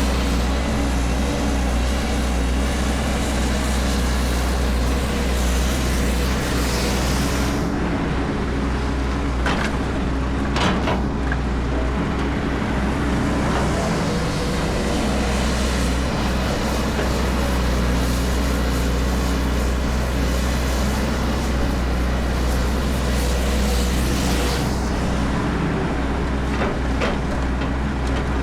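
Heavy vehicle engine running steadily at a constant speed, with a deep low hum throughout and brief brighter noise in places.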